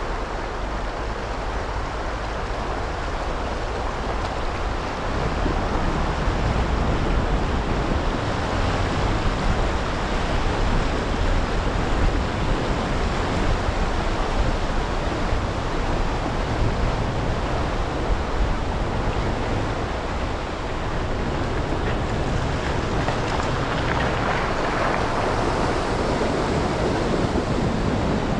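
Subaru Crosstrek driving over a gravel riverbed beside a fast-flowing stream: a steady low rumble of the car and its tyres on stones, mixed with the rushing of the river water, which grows stronger in the last several seconds.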